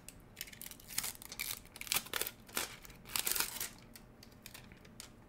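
Clear protective plastic film being peeled off the front of a floodlight camera and crinkling in the hand, in irregular crackles for about the first three and a half seconds, then quieter.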